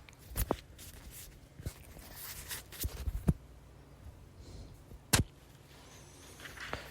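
Faint room noise with a low hum, broken by a handful of short clicks and knocks, the loudest a little after five seconds in.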